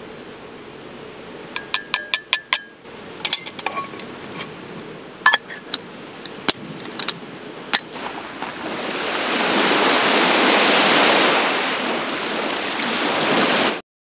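Small metal camp coffee cups and a hand coffee grinder clinking and tapping in quick runs of sharp, ringing clinks. About eight seconds in, a steady wash of waves on a lake beach rises and becomes the loudest sound, then cuts off abruptly near the end.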